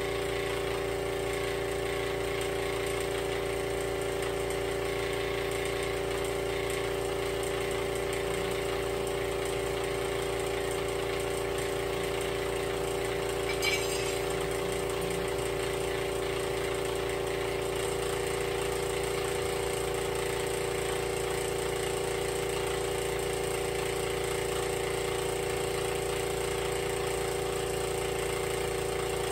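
Steady mechanical hum of a running machine, unchanging throughout, with a single sharp metallic clink about fourteen seconds in.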